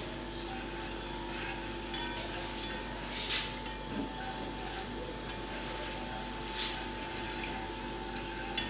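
A whisk stirring a thin sorghum-and-milk mixture in a pot, the liquid sloshing, with a few short swishes of the whisk against the pot.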